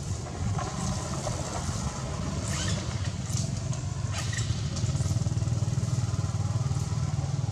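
An engine running steadily nearby, a low drone that grows louder over the last couple of seconds.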